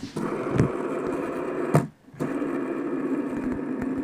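Fidget spinner whirring close to the microphone, with a click and a brief break about two seconds in before the whirr resumes.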